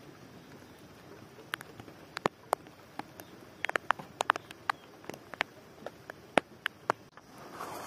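Rainwater dripping from a roof edge: sparse, irregular sharp drips landing on wet ground and objects, with a soft rustling swell near the end.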